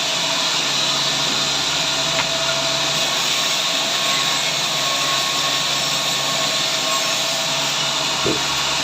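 Sawmill saw running steadily, a continuous machine hum with an even hiss, as it works through timber.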